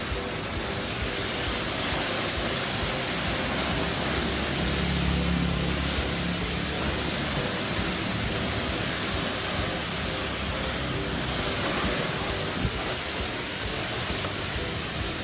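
High-pressure washer jet spraying water through a 40-degree fan nozzle onto motorbikes: a steady hiss of the spray striking the bodywork and pavement. A low hum swells briefly about five seconds in.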